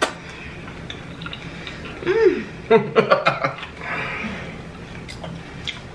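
Mouth sounds of someone eating, with a brief hummed 'mm' about two seconds in and a short chuckle just after.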